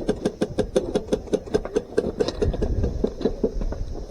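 Airsoft guns firing rapidly, a steady run of sharp clicks about six to seven a second that thins out near the end.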